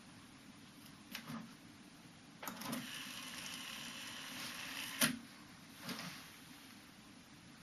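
Akai GX-Z7100EV cassette deck's tape transport being operated: a couple of mechanism clicks, then a steady whir of about two and a half seconds that stops with a sharp clunk, and another click a second later.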